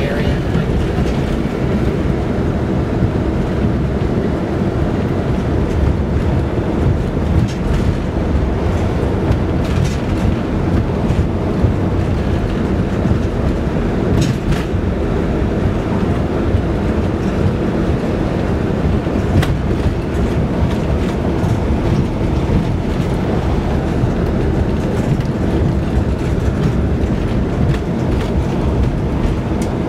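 Steady low rumble of tyres and engine heard from inside a moving car, with a few faint ticks.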